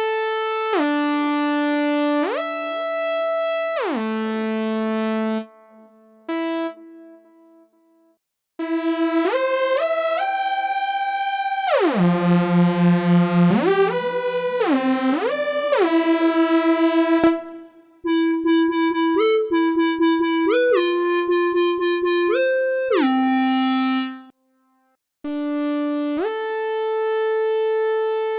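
MES Mini PWM synthesizer playing lead patches: single-note melodic lines that glide in pitch from note to note, in several short phrases with brief pauses between them.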